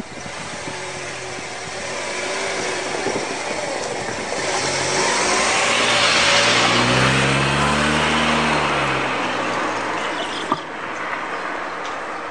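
A vehicle passes close by: the noise builds over a few seconds, peaks about halfway through with an engine note that drops in pitch as it goes past, then fades. A single sharp knock comes about ten and a half seconds in.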